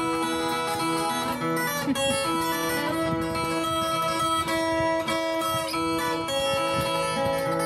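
Background music led by strummed acoustic guitar, with notes held steadily throughout.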